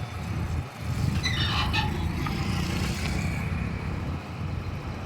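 Heavy diesel engine running, its low rumble growing louder about a second in and holding steady under load. A brief high-pitched sound comes through just after the rise.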